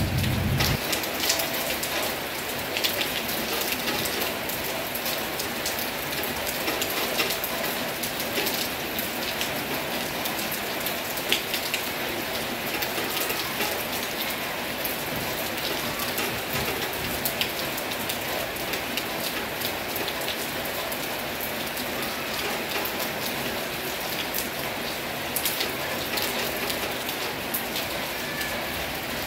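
Heavy rain falling steadily: a dense, even hiss with many sharp drop ticks throughout. A low rumble dies away within the first second.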